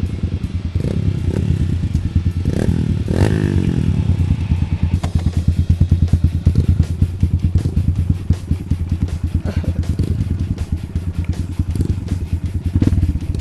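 Kawasaki D-Tracker supermoto's single-cylinder four-stroke engine idling with a steady, even beat.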